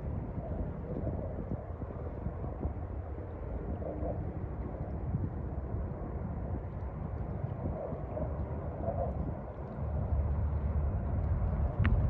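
Wind rumbling on the microphone at the shore, a steady low blustery noise that grows stronger about ten seconds in, with a brief tick near the end.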